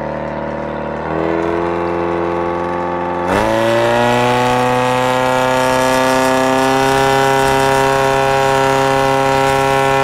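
Portable fire pump engine running hard as it drives water through the hose lines, its pitch stepping up about a second in, rising sharply just after three seconds, then holding a steady high tone.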